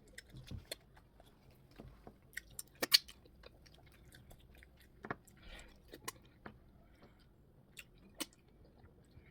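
Close-up eating sounds of a person chewing plantain fufu with okra soup: scattered short wet mouth smacks and clicks, the sharpest about three seconds in.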